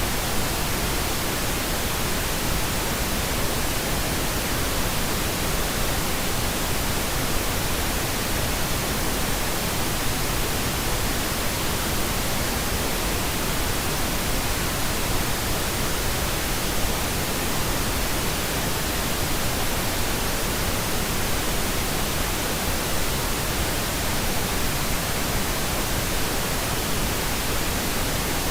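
Steady white noise: an even, unchanging hiss across all pitches, with no rhythm, tones or breaks.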